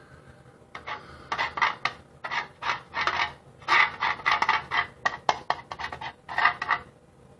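Paintbrush bristles scrubbing paint onto a textured knockdown wall: a quick, irregular run of short scratchy strokes, two or three a second, stopping near the end.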